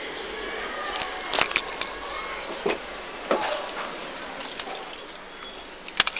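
Irregular sharp clicks and short creaks over a steady hum from a 2012 Ford Everest: the annoying noise the owner is recording, with a cluster of clicks about a second and a half in and again near the end.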